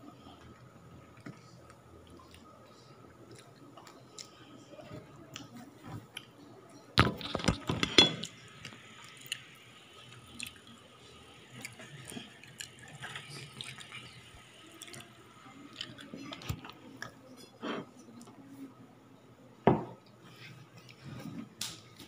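Dishes and cutlery clinking and knocking during a meal, with a louder clatter about seven seconds in followed by a soft hiss, and another sharp knock near the end.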